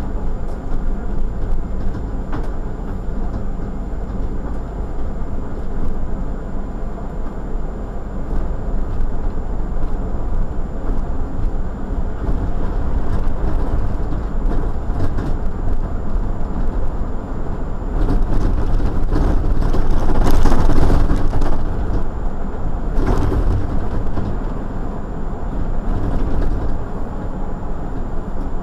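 City bus driving at steady speed: continuous engine drone and tyre noise, swelling louder for a few seconds about two-thirds of the way through.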